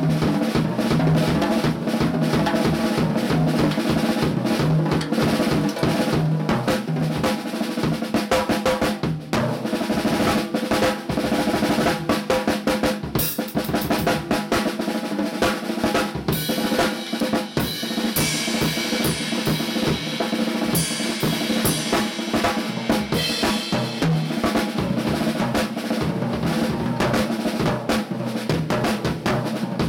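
Drum kit played in a busy, continuous groove, led by a Mapex Black Panther 'Sledgehammer' hammered brass snare drum with bass drum under it. A cymbal crash comes about a third of the way in, and cymbals ring over the drums through the middle stretch.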